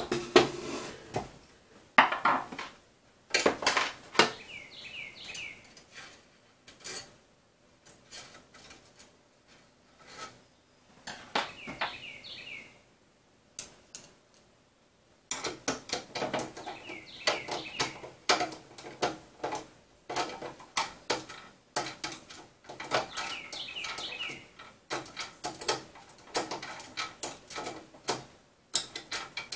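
Small metal parts clinking and clicking in irregular bursts with pauses, as T-slot nuts are slid into place and screws are fitted and tightened on a 3D printer frame. Short bird chirps sound faintly a few times in the background.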